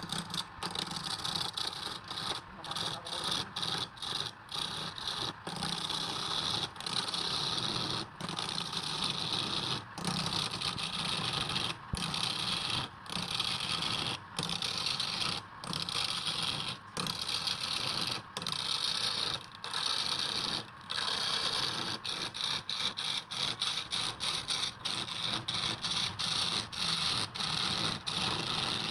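Woodturning lathe spinning a workpiece while a tool cuts or sands it: a steady hissing scrape, broken by many brief gaps about a second apart.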